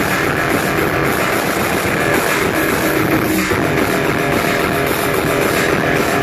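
Loud hardcore electronic dance music from a DJ set, played over a venue sound system; a dense, continuous wall of sound with no breaks.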